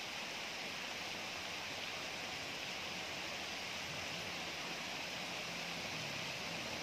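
Steady rushing hiss of floodwater flowing across a road. In the second half, the low engine hum of motorcycles riding through the water comes in faintly.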